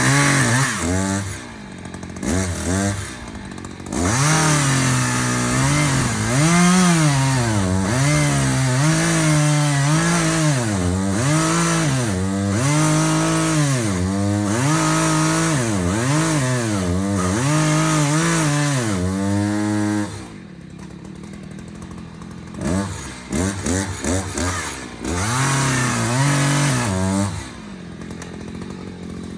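Two-stroke chainsaw revved up and down over and over, about once a second. It drops back to a lower run about two-thirds of the way through, then gives a few more short revs near the end.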